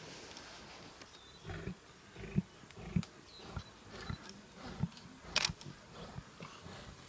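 Lions at a waterbuck kill growling in short, low, irregular grunts, with one sharper, louder snarl about five and a half seconds in.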